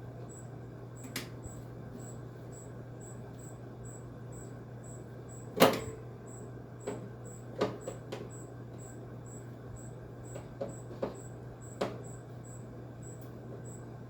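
Scattered metal clicks and knocks of a hand tool working the square bolts on a window air conditioner's casing brackets during disassembly, the loudest about six seconds in, over a steady low hum.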